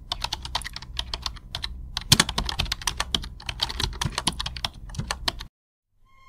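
Keyboard typing sound effect: rapid, irregular key clicks that stop about five and a half seconds in, after which a steady musical tone begins near the end.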